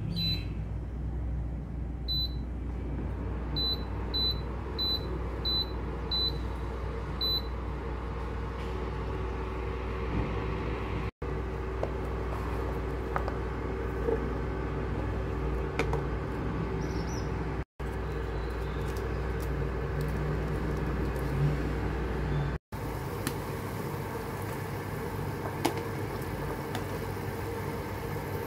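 Induction cooktop control panel beeping, about eight short high beeps in the first seven seconds as its buttons are pressed, over the cooktop's steady cooling-fan hum. Later there are soft clinks and splashes as radish slices and pork balls go into the steel pot of soup broth, and the sound drops out briefly three times.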